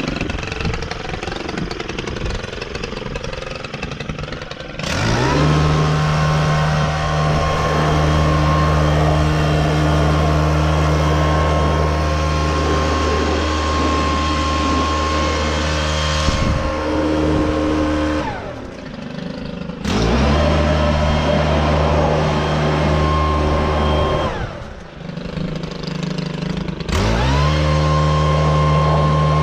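Small-engine leaf blower revved up to full throttle about five seconds in and held there, then let back twice for a second or two and revved up again each time.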